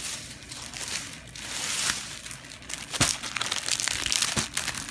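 Plastic bag and packaging rustling and crinkling as things are handled, with two sharp knocks in the second half.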